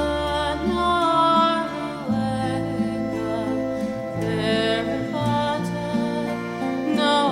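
Background music: a slow, gentle song with a singing voice over plucked strings.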